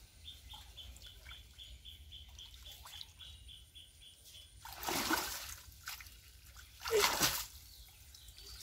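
Pond water splashing and sloshing in two loud bursts, about five and seven seconds in, as a man wades with a wet cast net and lifts it out to the bank. Before that, a faint high chirping repeats about five times a second.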